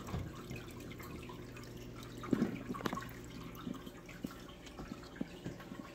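Faint water trickling and dripping in a home aquarium over a steady low hum, with a few small knocks a couple of seconds in.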